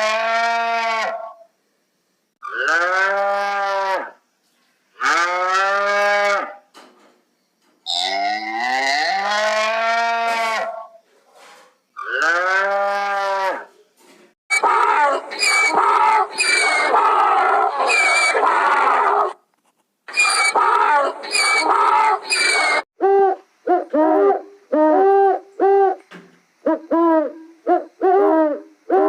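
A string of animal calls separated by abrupt cuts: five long drawn-out, cattle-like mooing calls of about one to two seconds each, then a harsher, noisier call lasting several seconds, then a rapid run of short hooting calls near the end.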